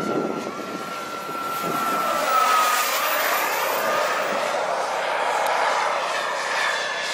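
Turbine engine of an XL Boomerang radio-control model jet whining with a rushing blast as it flies past, its whine dropping slightly in pitch about two and a half seconds in as it goes by.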